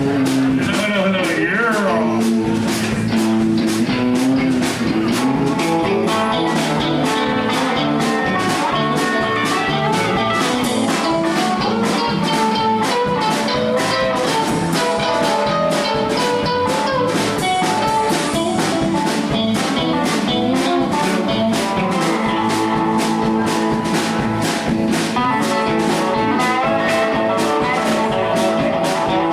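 Live band jamming a blues-style instrumental: guitar lines over a steady drum-kit beat.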